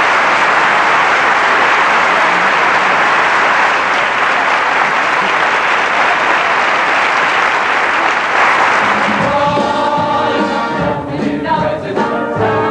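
Theatre audience applauding steadily. About nine seconds in, a show orchestra strikes up a brassy finale tune that takes over from the clapping.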